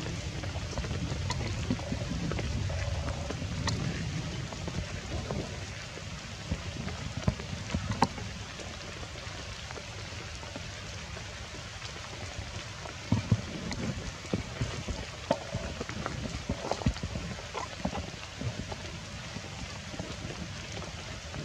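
Steady rain, with scattered sharp drop hits and a few louder taps, the loudest about eight seconds in and a cluster around thirteen seconds.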